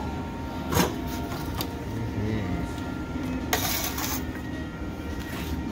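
Steady low mechanical rumble with a faint steady whine underneath. A single knock comes about a second in, and a short scraping clatter at about three and a half seconds, as a whole smoked chicken is set down on an aluminium sheet pan.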